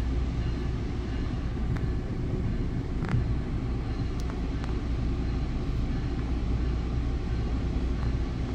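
Steady low rumble heard inside a Bombardier MultiLevel commuter coach as the train rolls slowly along a station platform, with a faint click about three seconds in.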